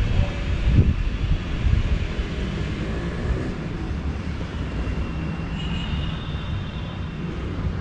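Steady city traffic rumble with wind buffeting the microphone in uneven gusts. A faint high tone comes in briefly about six seconds in.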